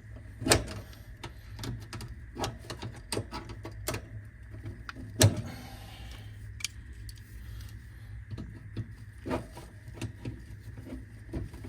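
Clicks, taps and knocks of a dual run capacitor being handled and pushed into its metal mounting bracket in an air-conditioner condenser, with two sharper knocks, about half a second in and about five seconds in, over a steady low hum.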